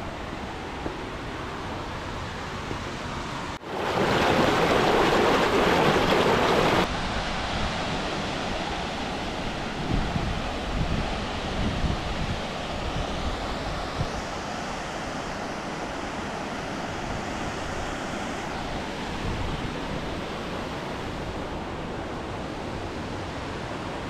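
Steady rushing noise of wind on the microphone over flowing water in a gorge. About four seconds in, a much louder stretch of rushing noise starts abruptly and lasts about three seconds, then cuts off.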